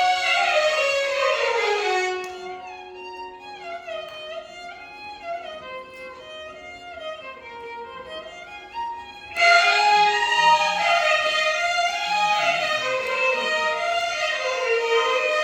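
A violin ensemble plays a Carnatic melody full of sliding, wavering ornaments over a held drone note. About two seconds in it drops to a softer passage, and about nine seconds in the full ensemble comes back in loudly.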